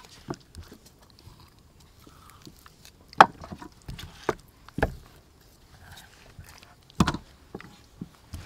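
Scattered knocks and soft taps on a wooden chopping board as a raw chicken leg is scored with a knife, turned over and set down. About half a dozen sharp knocks are spread out, the loudest about three seconds in and again about seven seconds in.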